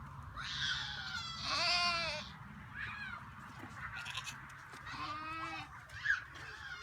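Goats bleating, several wavering calls one after another, the longest and loudest about two seconds in.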